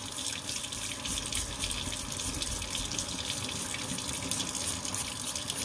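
Kitchen tap running steadily into a stainless steel sink, the stream splashing over a small nitro engine block that is being scrubbed with a toothbrush under it.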